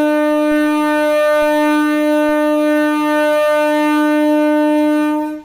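MEMU electric train's horn sounding one long, steady blast at a single pitch, cutting off abruptly near the end.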